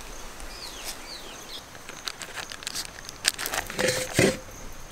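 Plastic butter wrapper crinkling as it is peeled off blocks of butter, with louder handling noise near the end. Birds chirp faintly in the background.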